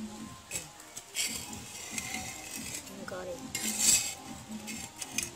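Metal cooking utensil scraping and clinking against cookware, in two rasping stretches: a longer one about a second in and a shorter, louder one near the end.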